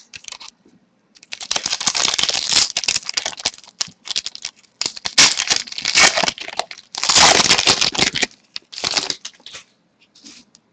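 Foil wrapper of a hockey card pack being torn open and crinkled, in several crackling bursts over about seven seconds.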